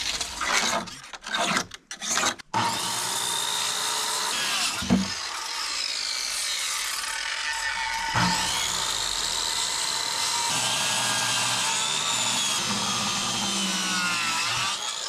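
A few short knocks of a wooden board being handled, then a power saw cutting the board, running steadily for about twelve seconds with its whine bending slightly up and down as it cuts.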